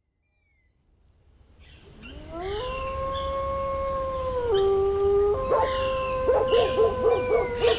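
Night ambience fading in: crickets chirping steadily at about two or three pulses a second, with a canine howl that rises, holds, and breaks in pitch, joined near the end by several wavering overlapping howls.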